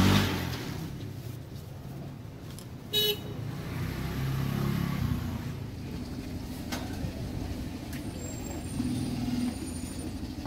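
Street traffic running close by, a steady engine rumble with a vehicle passing loudly at the start. A short horn toot sounds about three seconds in.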